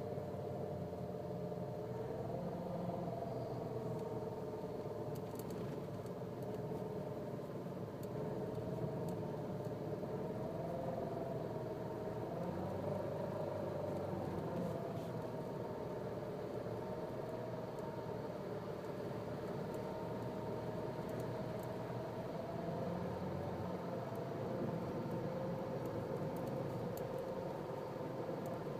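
Nissan Cube's CVT whining: several high tones that drift slightly up and down in pitch, over a low engine hum. It is the abnormal noise that came on suddenly from the transmission, a fault the owner was quoted a major repair for.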